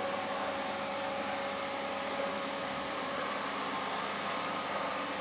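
A steady mechanical hum and hiss with a faint, even whine through it, unchanging throughout.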